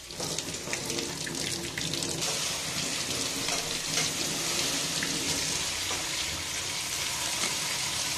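Kitchen tap running steadily, its water splashing off raw fish steaks held under it and into a stainless-steel sink as they are rinsed.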